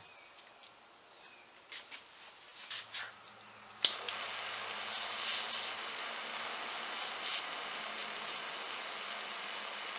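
Small handheld gas torch lit with a sharp click about four seconds in, then hissing steadily as its blue flame heats a seized threaded shaft soaked in penetrating oil. A few light clicks of handling come before it.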